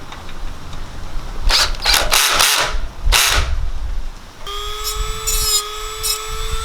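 A few seconds of handling and scraping noise, then a power drill starts about four and a half seconds in and runs with a steady whine, tightening the screw and nut of the bracket.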